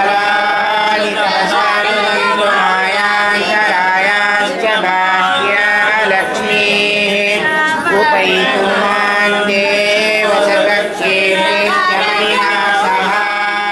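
Several voices chanting Hindu devotional hymns in a melodic, sung style, with a steady low tone underneath.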